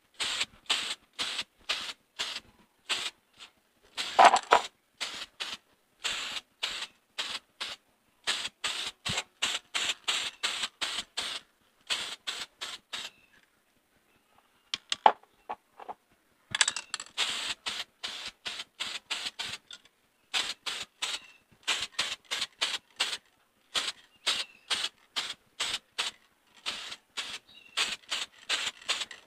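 Aerosol can of clear PP plastic primer sprayed in short bursts, about four a second, with a pause of a few seconds near the middle: light, thin coats laid onto plastic covers.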